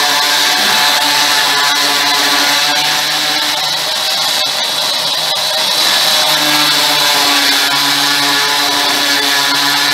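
Electric drill with a diamond core bit cutting through a granite countertop, its motor running with a steady whine that wavers for a couple of seconds midway.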